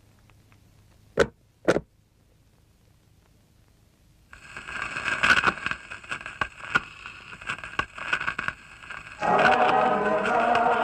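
Two sharp knocks about a second in, then a scratchy, crackling sound from a record player starting about four seconds in, with many small clicks. Near the end it grows louder and denser as the playback turns into music.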